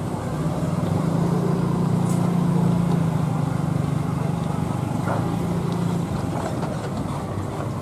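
A passenger train running away down the track: a steady rumble of wheels on the rails with a low hum that drops away about six seconds in.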